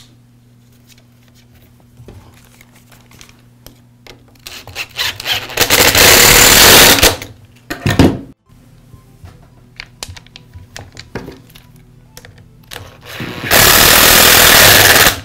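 Cordless screwdriver driving Torx screws into a string trimmer's plastic trigger handle, in two loud runs of about two seconds each (around six seconds in and again near the end) and a short burst in between. Light clicks of parts being handled between the runs.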